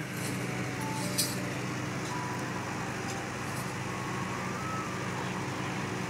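Steady engine-like hum under an even background din, with a few faint short tones and clicks.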